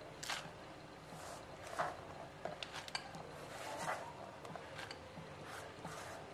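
Chopped spring onions dropped by hand into beaten egg in a glass bowl: a few soft, scattered rustles and light taps.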